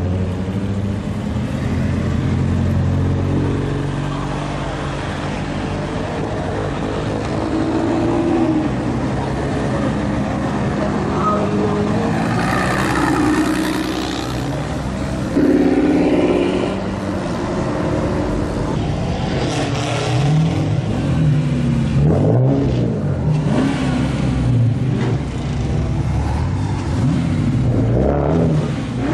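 Modified cars' engines running and revving as they drive off one after another, with revs rising and falling several times in the second half.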